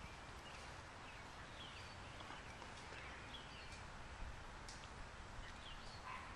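Quiet outdoor background noise with a few faint, short, high chirps from birds.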